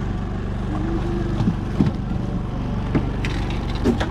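A motor running with a steady hum on a bowfishing boat, with a few light knocks along the way.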